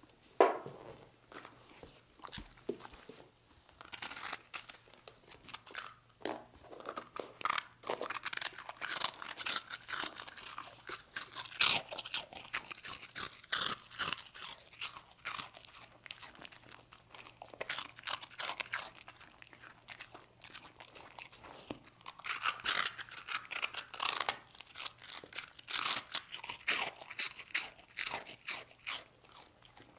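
A dog crunching and chewing hard rusk, a dense run of irregular crisp crunches, the loudest about half a second in.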